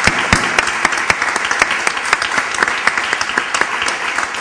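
Audience applauding, with one person's louder claps standing out close to the microphone.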